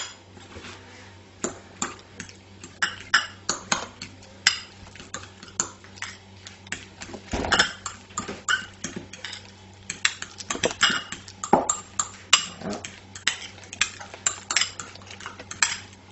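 A metal spoon and fork clinking and scraping against a glass bowl and a china bowl while tuna is mixed with mayonnaise, in irregular sharp clicks, at times several a second.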